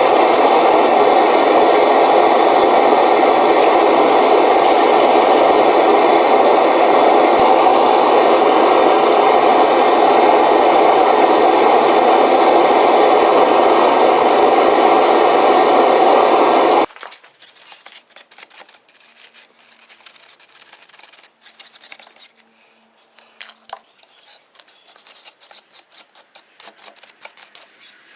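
A motor-driven shop tool runs steadily at a constant speed, then stops abruptly about two-thirds of the way through. Light, irregular scraping and small clicks follow.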